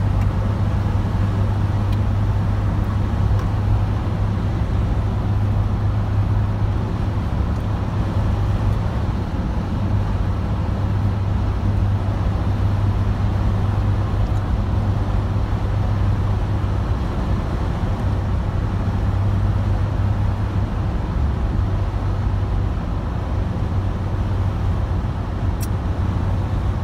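Steady noise inside a moving car cruising on an open road: a constant low drone of engine and tyres on the pavement, with a softer hiss above it.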